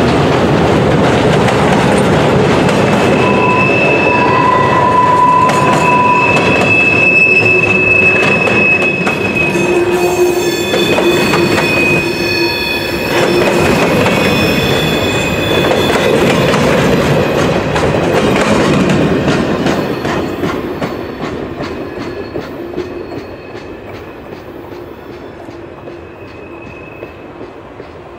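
Freight cars of a long CN manifest train rolling past with a rumbling clatter of wheels over the rails and long wheel squeals. The sound fades away over the last third as the end of the train passes.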